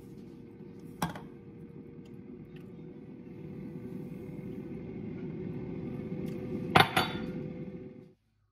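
Granulated sugar poured from a glass measuring cup into a stainless steel pot, a steady pouring hiss that swells as the stream runs, with a sharp clink of glass on the pot about a second in and two quick clinks near the end as the cup is knocked against the rim. The sound cuts off suddenly just before the end.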